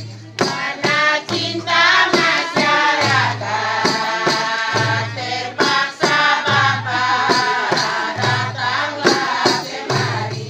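A group of women singing a traditional song in unison, accompanied by hand-beaten frame drums struck in a steady rhythm. A low beat recurs about every second and a half under the voices.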